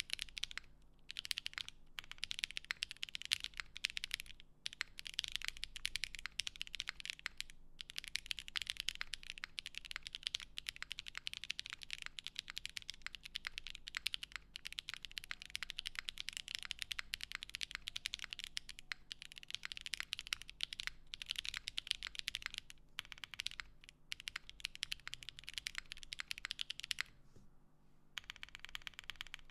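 Fast, continuous typing on a Cycle7 mechanical keyboard with stock Kailh Box Taro switches and GMK Dolch keycaps, no foam in the case. It is a dense stream of key clacks broken by a few short pauses, the longest one about two seconds from the end.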